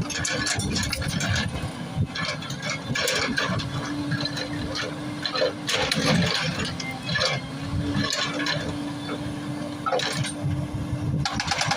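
Hydraulic excavator's diesel engine running steadily, with irregular clanks and knocks of rock and metal. A fast, even rattle starts near the end.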